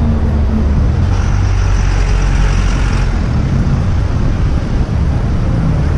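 City road traffic heard while riding along a bike lane beside the traffic lane: a steady, loud low rumble of passing cars and a truck, with a rushing hiss that swells and fades about one to three seconds in.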